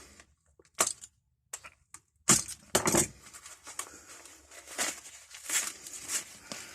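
A parcel being opened by hand: sharp rips of packaging about one, two and three seconds in, then steady crackling and rustling of the wrapping.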